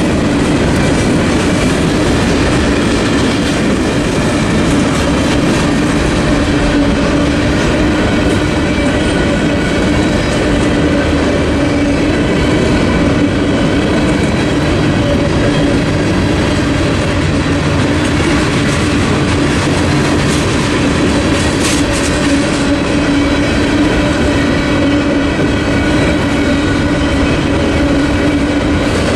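Freight train cars rolling steadily past over a grade crossing, their wheels rumbling and clacking on the rails, with a steady low tone running underneath.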